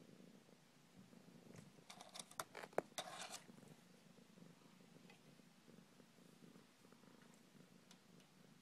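Domestic cat purring faintly and steadily, with a brief flurry of scrabbling clicks and scrapes about two seconds in as she moves against the door gap.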